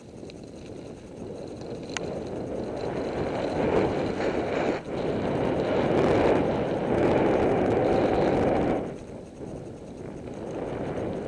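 Wind noise on a ContourHD action camera's covered microphone as the road bike picks up speed, growing louder over the first several seconds and dropping off sharply about nine seconds in. A single click about two seconds in.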